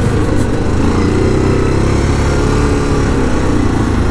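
Yamaha Grizzly 700 SE quad's single-cylinder four-stroke engine running steadily under way, its pitch wavering slightly.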